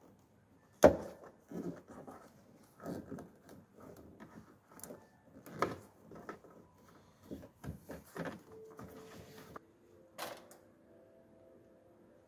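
Irregular knocks, clicks and rustles of a plastic tail-light housing and its wiring loom being handled and pressed into place in a van's rear pillar, with a sharp knock about a second in.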